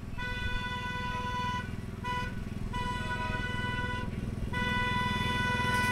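Horn of a ride-on miniature railroad locomotive sounding a crossing signal as the train approaches a grade crossing: a long blast, a short one, then two more long ones, the last carrying on. A low steady rumble of the train runs underneath.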